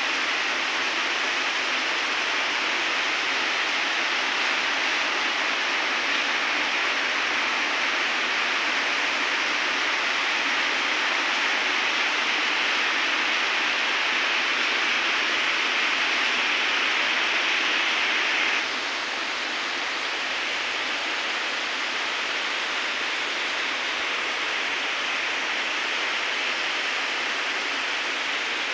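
Heavy rain falling in a steady, even hiss, with no gusts or single drops standing out. It drops abruptly to a slightly lower level about two-thirds of the way through.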